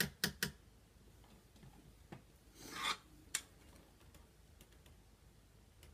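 Makeup being handled: three quick sharp clicks of small cases, then a makeup brush rubbing briefly in a short swish, and one more click.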